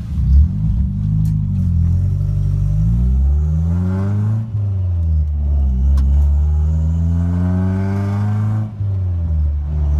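Car engine accelerating hard under load through the gears of a manual gearbox. The pitch climbs steadily, drops with an upshift about four and a half seconds in, climbs again and drops with another upshift near the end.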